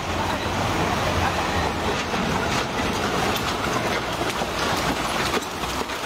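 Steady rushing noise with a low rumble and faint scattered ticks, without speech.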